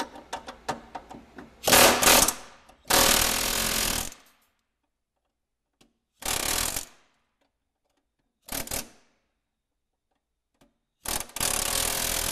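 Pneumatic air chisel hammering in short bursts as it cuts the heads off the pop rivets holding a snowmobile running board support. The first burst, about two seconds in, is the longest, followed by three shorter bursts with silent gaps between them; a few light clicks come before the first burst.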